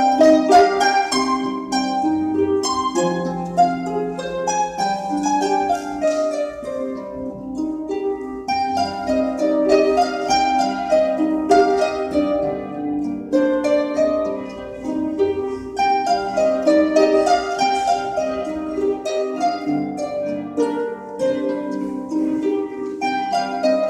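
Harp ensemble playing, many harps plucking overlapping notes and chords that ring and die away.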